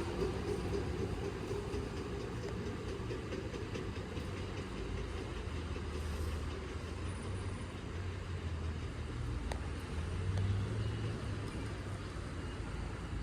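Hankyu electric commuter train running at the station, a steady low rumble of wheels on rail with slight swells around the middle and again about two-thirds through.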